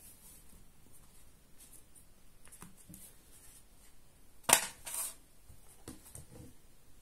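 Quiet handling sounds of a plastic phone case and its cardboard retail box on a desk: one sharp click about halfway through, the loudest sound, then a brief brushing sound and a few soft knocks near the end.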